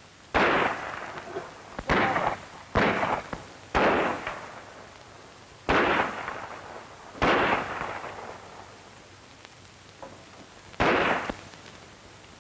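Seven gunshots, spaced irregularly about one to two seconds apart, each followed by a short echoing tail.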